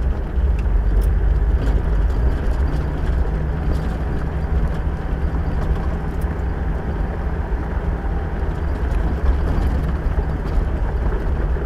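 Vehicle driving on a dirt track, heard from inside the cab: a steady low engine and tyre rumble with scattered small rattles and knocks.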